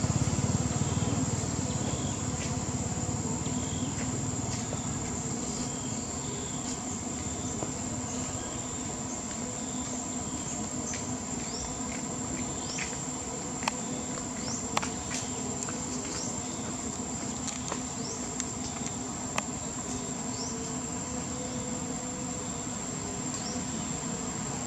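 Insects droning, one steady high-pitched tone, with many short chirps over it and a few sharp clicks in the middle. A low rumble fades out over the first few seconds.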